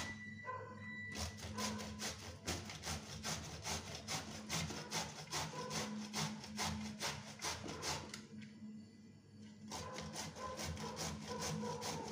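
Unpeeled bottle gourd being grated on a flat stainless-steel hand grater: quick rasping strokes, about three a second, with a pause of a couple of seconds about two-thirds of the way through before the strokes resume.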